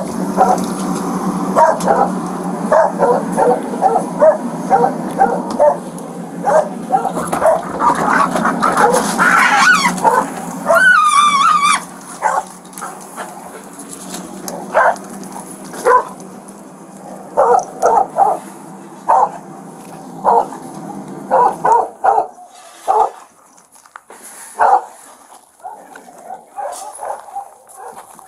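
A pack of feral dogs barking and yipping over and over, with a high wavering yelp about ten seconds in. A steady low hum runs under the barking and stops about three-quarters of the way through, after which the barks come more sparsely.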